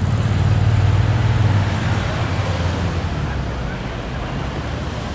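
Busy city street ambience: steady road traffic with a low engine rumble, swelling in the first couple of seconds as a vehicle passes close, then easing back to a general traffic wash.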